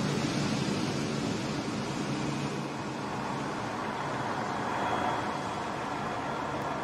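Steady rushing noise of the Boeing 777X's GE9X turbofan engines at taxi power, with a faint high whine coming in about two-thirds of the way through.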